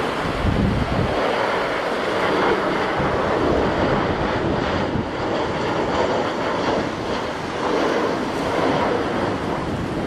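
Gusty wind buffeting the microphone over the steady roar of a Boeing 737-900ER's CFM56 jet engines as the airliner flies its approach.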